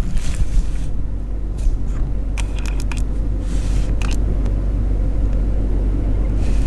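Road noise inside a moving vehicle's cabin: a steady low rumble of engine and tyres, with a few light clicks.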